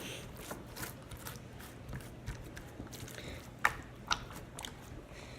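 Homemade glue slime being worked by hand, making small sticky, wet clicks and pops, with two sharper ones about three and a half and four seconds in.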